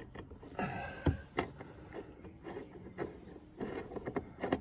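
Irregular small clicks and knocks with faint scraping as a T30 Torx key is turned to undo a screw in a car's plastic door trim, a few sharper clicks about a second in and near the end.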